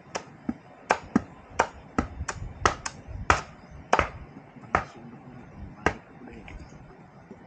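Bolo knife chopping at a green bamboo pole: about a dozen sharp, irregular knocks over the first six seconds, the loudest a little past three and four seconds in.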